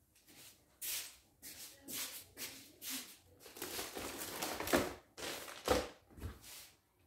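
Clear plastic bags of medication packages crinkling and rustling as they are handled and set down on a countertop, with two soft thuds in the second half.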